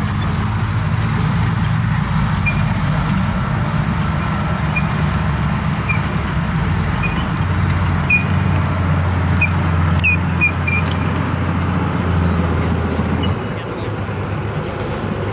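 Engine of a tracked Tiger I replica tank running steadily as it drives across grass, its low drone growing heavier about halfway through and easing near the end. Scattered short high squeaks sound over it.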